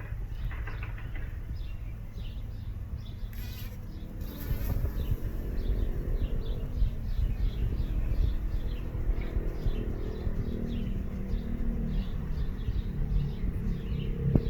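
A bee buzzing, coming in about four seconds in, with its pitch wavering, while a small bird chirps repeatedly in quick succession.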